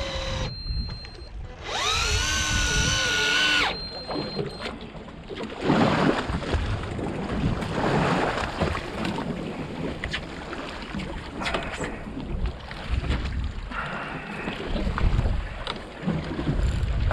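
A motor-driven fishing reel whines for about two seconds near the start, rising in pitch as it spins up and then holding steady. After that come wind and water noise with scattered knocks and handling sounds on the boat.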